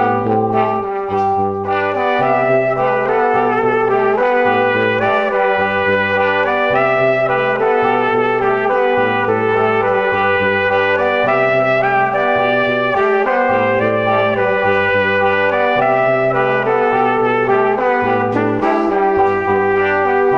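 Background music: an instrumental track with a bass line stepping from note to note about every half second to a second under sustained stacked tones.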